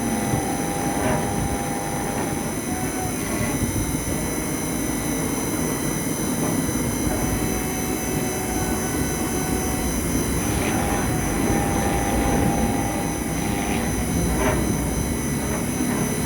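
CNC engraving spindle running steadily with a high whine while the cutter engraves a brass plate, with a few faint ticks now and then.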